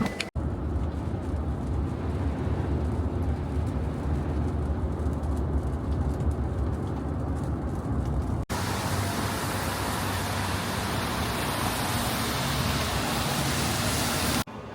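Steady rumbling vehicle-cabin noise, in two clips joined by a sudden cut about halfway through: a deep low rumble, then a hissier, brighter roar.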